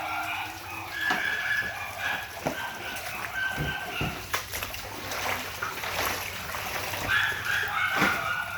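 A dog whining in high drawn-out tones, several times, over splashing and sloshing of floodwater with a few knocks.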